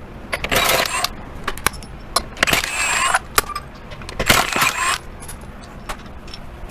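Impact wrench spinning off 22 mm wheel lug nuts in three short bursts, with sharp metallic clinks of the loosened nuts between them.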